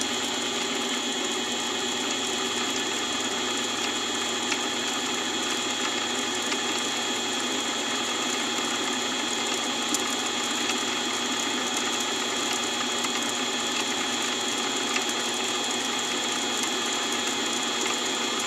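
Mini-lathe running at a steady speed, its motor and gear train giving an even mechanical whir with a high whine, as a 0.5 mm drill bit is fed into a spinning brass workpiece.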